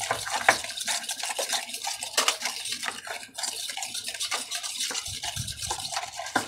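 Egg and powdered sugar being beaten by hand in a metal bowl: a utensil scraping and clicking against the metal in rapid, repeated strokes.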